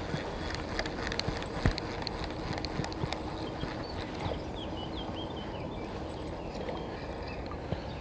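Irregular light clicks and knocks over a steady low rumble, with a small bird chirping a few times about halfway through.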